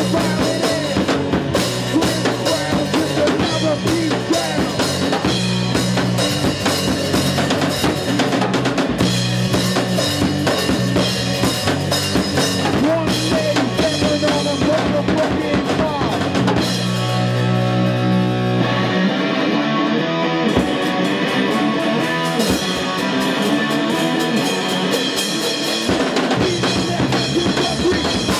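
Live rock band playing loudly: drum kit, electric guitar and a sung vocal through a PA. In the second half the low bass drops out for several seconds, leaving guitar and drums, then the full band comes back in near the end.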